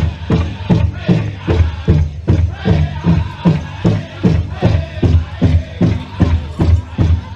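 Powwow drum beaten in a steady, even beat of about two and a half strokes a second, with singers' voices over it.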